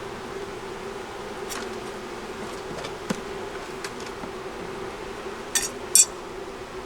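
Honey bees buzzing steadily in an open hive during a frame inspection, a low even hum. A few light clicks sound through it, and two sharper, louder scraping clicks come near the end.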